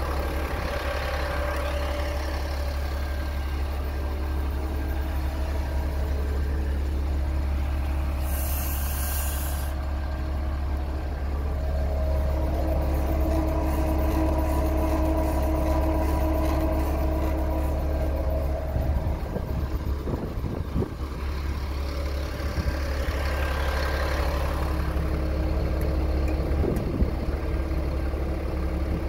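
GMC C7500 asphalt distributor truck's engine idling steadily, with a short high hiss about eight seconds in.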